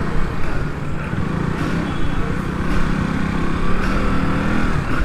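Motorcycle engine running steadily while riding, under heavy wind rumble on the microphone; the engine note grows stronger in the middle and eases off near the end.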